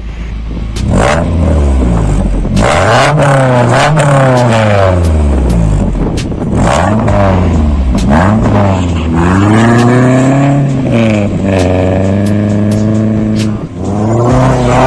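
Toyota Camry SXV10's 2.2-litre four-cylinder engine revving up and down repeatedly through a home-made 51 mm thin-walled stainless steel exhaust, its pitch climbing and falling several times.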